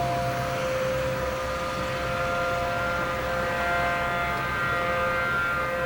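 Outdoor tornado warning sirens sounding steady tones, several pitches overlapping, with further higher tones joining about two seconds in, over a low background rumble.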